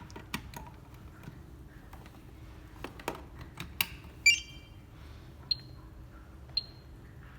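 Fluke cable tester running a Cat6 cable test: a few sharp clicks, then a loud electronic beep a little past four seconds in, followed by two short high beeps about a second apart.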